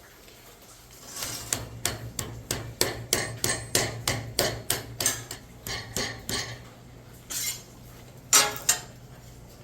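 Hammer striking metal in a steady run of about four blows a second, followed by two separate, heavier blows near the end.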